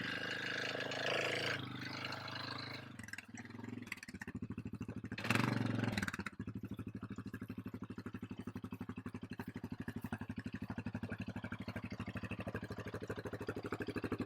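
An engine running steadily with an even, rapid pulse, with a short louder noisy burst about five seconds in.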